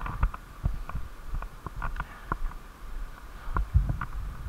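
Footsteps on a concrete floor with the knocks and rustle of a body-worn camera being jostled: irregular light knocks two or three a second, with a heavier thump a little before the end.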